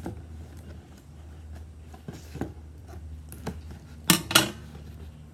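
Scissors snipping through a box's packaging, a handful of sharp snips about a second apart, the loudest two in quick succession about four seconds in.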